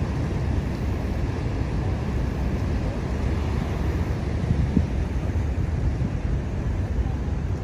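Steady rushing of Niagara Falls and its rapids, heaviest in the low end, mixed with wind buffeting the microphone.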